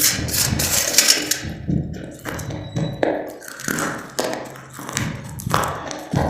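Crunchy biscuits being bitten and chewed close to the microphone: a quick run of sharp, crackling crunches with dull thuds beneath.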